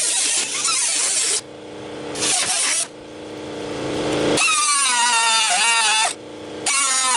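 Air-powered cut-off tool cutting out rusted floor and transmission-tunnel sheet metal in several on-off bursts. In the later bursts its high whine wavers and dips in pitch as the wheel bites into the metal.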